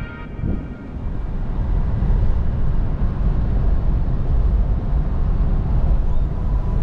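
Land Rover Defender 110 driving, heard from inside the cabin: a steady low rumble of engine and tyre noise, growing louder about a second in, as the vehicle runs through a road tunnel.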